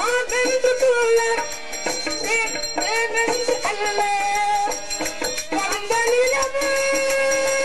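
Live Tamil stage music: a melody with sliding notes and one long held note near the end, over harmonium and drums with steady percussion strikes.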